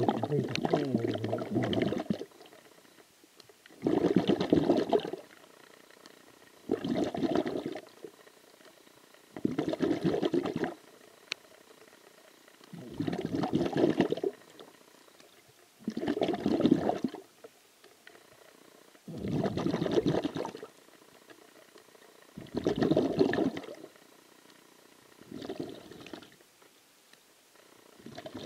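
A swimmer's breathing heard through the water at an underwater camera: a rushing burst about every three seconds, with quiet between breaths.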